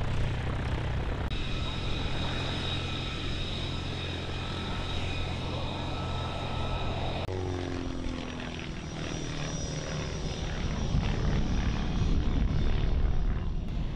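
Aerobatic biplane's piston engine running steadily at idle on the ground, with a steady high whine over it. About seven seconds in, the sound cuts to the biplane's engine in flight: a drone that falls in pitch, then grows louder and rougher toward the end.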